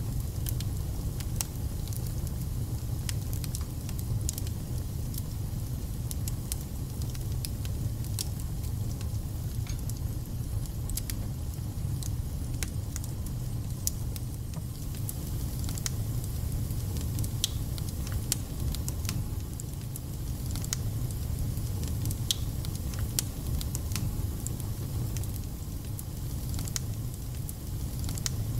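Wood fire burning in a fireplace: a steady low rumble with frequent sharp crackles and spits from the logs at an uneven rate.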